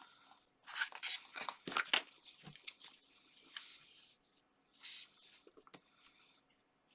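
Paper and card being handled on a craft table: several short bursts of rustling and scraping, with the busiest stretch about a second in.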